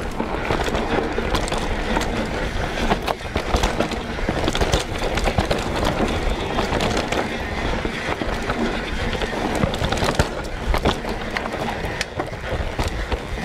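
Mountain bike descending a rough, technical dirt trail: knobby tyres rolling over dirt and roots, with the bike rattling and many sharp knocks from impacts throughout.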